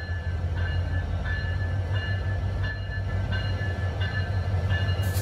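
Train at a station platform with its diesel locomotive running steadily in a low hum, faint high whining tones coming and going over it.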